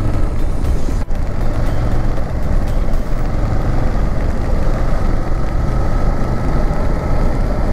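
Motorcycle riding on a wet road: the engine's steady low hum mixed with wind and road noise.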